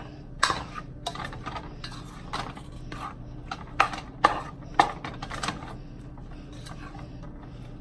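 A spoon clanking and scraping against a pot while a meat mixture of ground beef, sausage, peppers and onions is stirred together, in irregular knocks that thin out near the end.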